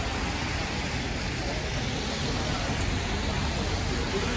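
Steady city street noise: an even hiss over a low rumble, as of traffic on a winter street.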